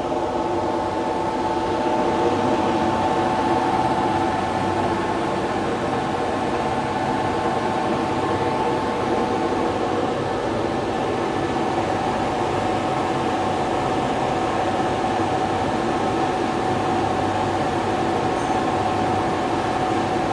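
Cage mill (cage crusher) running empty with its two counter-rotating rotors spinning, on a no-load test: a steady loud mechanical hum with a whine that slowly drifts slightly lower in pitch.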